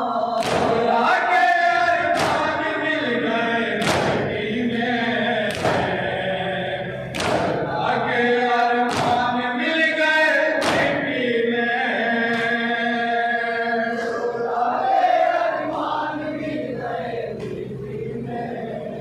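A group of men chanting an Urdu noha (a Shia lament) in chorus, over sharp slaps of hands beating on chests (matam) that come every second or two, mostly in the first half.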